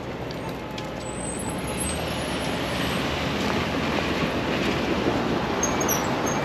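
City street traffic: cars passing on a busy downtown street, a steady road noise that grows a little louder about two seconds in.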